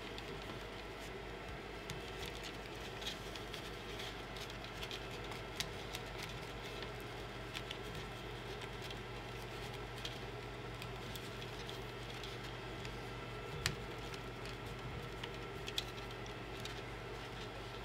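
Faint scattered clicks and rustles of hands working printer wires into a plastic spiral cable wrap, over a steady low hum, with a sharper click about 14 seconds in and another near 16 seconds.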